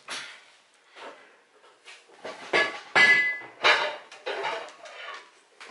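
Irregular clinks, clatters and knocks, like dishes or metal objects being handled, one of them ringing briefly a little under halfway through.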